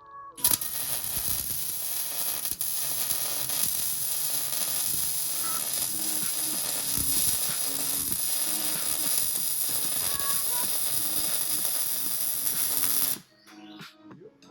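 MIG (wire-feed) welding arc running in one continuous bead, set at about 16.7 volts and 264 wire speed: a steady, loud noise that starts about half a second in and cuts off abruptly near the end.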